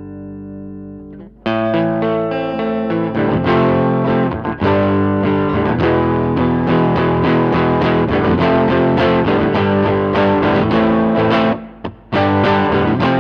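Electric guitar, a Fender Stratocaster, played through a Line 6 Helix amp-and-cab model: a held chord rings and fades, then about a second and a half in a loud run of picked notes and chords begins, with a short break near the end.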